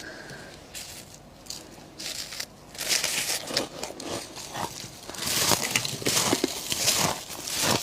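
Close-miked crunching and crackling of powdery freezer frost and ice, sparse at first, then denser and louder from about three seconds in.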